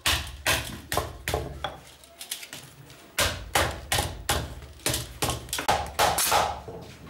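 Hand hammer beating a thin steel strip on a wooden log block: a run of sharp metallic strikes, roughly three a second, with a pause of about a second partway through.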